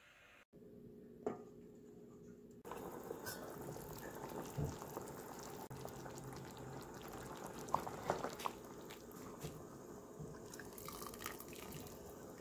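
Water sloshing and dripping as a whole poached chicken is lowered into a bowl of ice water and turned with chopsticks, starting about three seconds in, with a few light clicks along the way.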